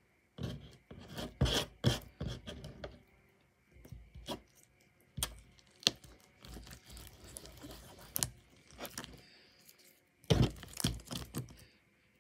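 Sticky homemade glue slime being stretched into strings and pressed with the fingers on a table: irregular wet crackles, clicks and short tearing sounds, coming in clusters near the start, around the middle and near the end.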